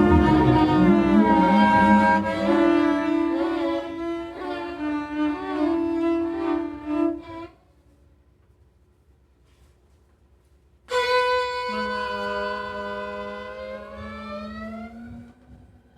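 Experimental music on bowed strings: sustained, slightly wavering notes that break off about halfway through into a pause of near silence, then a new sustained bowed note that enters suddenly.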